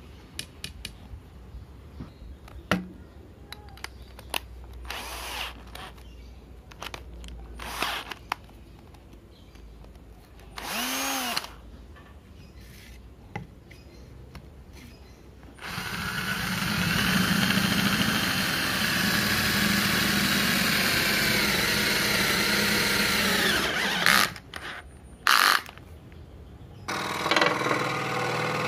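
Electric drill with a twist bit boring into a wooden board: a brief spin-up and stop, then a steady run of about eight seconds and two short bursts. Light knocks of handling come before it, and near the end a scroll saw starts running.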